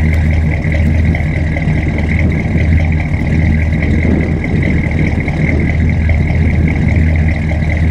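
A 1974 Chrysler New Yorker's 440 big-block V8 idling steadily, heard at the tailpipes of its dual exhaust.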